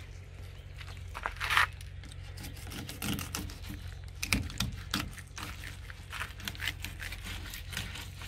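Fillet knife cutting and scraping along a blue cod's frame and skin: a run of small irregular crackly clicks and scrapes, with a sharper scrape about one and a half seconds in.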